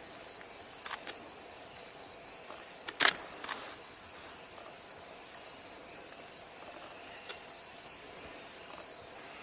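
Steady high-pitched chirring of insects, with a few sharp clicks about one and three seconds in, the loudest just after three seconds.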